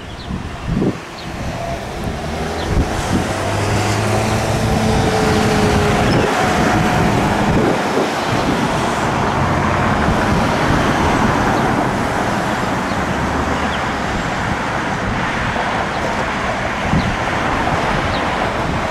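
Road traffic moving through an intersection: car engines and tyre noise that grow louder over the first few seconds and then hold steady, with a low engine hum. Wind buffets the microphone now and then.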